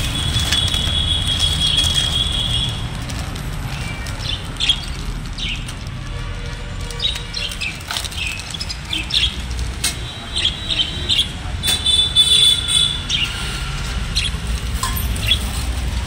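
Small caged parakeets (budgerigars, here called love birds) chirping and calling, with wings fluttering in the cage. A long high call comes at the start and again about twelve seconds in, with short chirps between. A steady low hum runs underneath.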